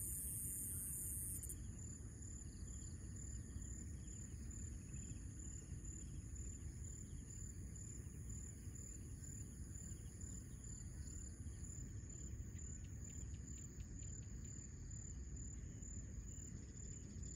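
Faint, steady high-pitched calls of evening insects such as crickets, over a low background rumble. A higher, louder insect note stops about a second and a half in, and another drops out about twelve seconds in.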